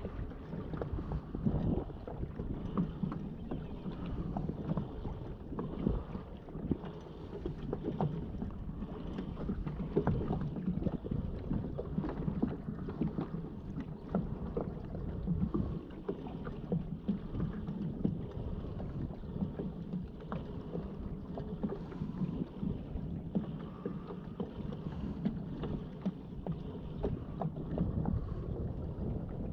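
Water lapping and slapping against a kayak's hull, with wind on the microphone.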